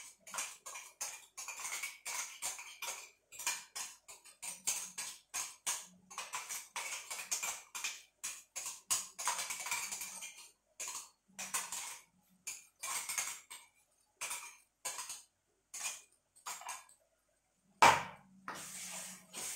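A steel spoon scraping and tapping ginger-garlic-chilli paste out of a small steel mixer-grinder jar into a kadai: a broken run of quick metal scrapes and clinks. Near the end comes one loud clank with a low ring after it.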